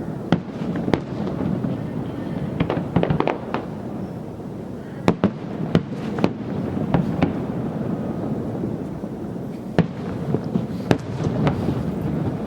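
Fireworks display: shells bursting at irregular intervals, a few seconds apart, with a quick run of cracks about three seconds in, over a steady background rumble.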